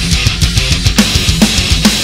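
Heavy metal drum kit played fast: a dense stream of double-bass kick drum hits under sharp snare strikes about every half second in the second half, with cymbals washing over them, along with a heavy metal backing track with distorted electric guitar.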